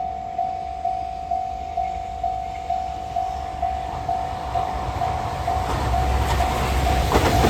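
Railway level crossing warning bell ringing at one steady pitch, about two strikes a second. Under it an approaching container freight train grows louder, its rumble swelling near the end as it arrives.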